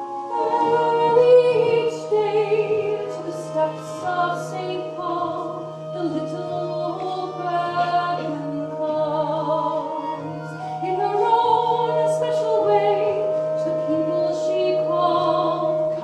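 A woman singing a slow, lilting song with vibrato over a soft live accompaniment, with a low note held steady under it for most of the time.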